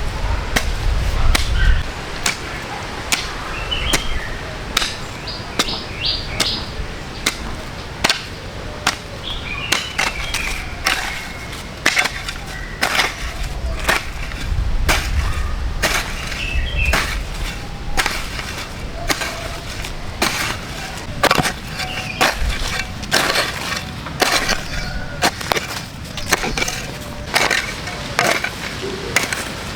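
Many irregular sharp knocks and clattering hits, some close together and some spaced out, with a few faint short chirps between them.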